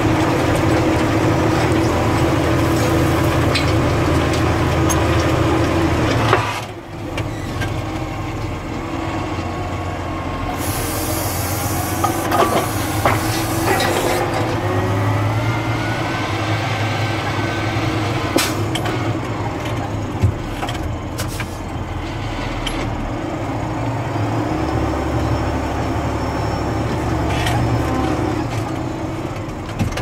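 Valtra Versu T213 tractor's six-cylinder diesel running hard under ploughing load, then easing off suddenly about six seconds in. It runs on with clicks and knocks, a few seconds of hiss and some rising whines as the reversible plough is lifted and turned over at the headland.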